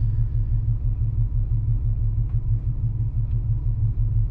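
GU Nissan Patrol's petrol engine idling, a steady low rumble heard inside the cabin of the stopped car. A couple of faint ticks sound in the middle.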